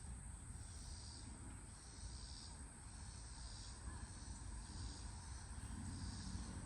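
Insects chirping in an even rhythm, about one and a half soft pulses a second, over a low steady rumble.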